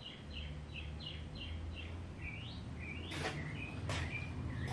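A songbird calling a string of short, falling chirps, about three a second, then a few rising notes, over a steady low hum. Two brief knocks come near the end.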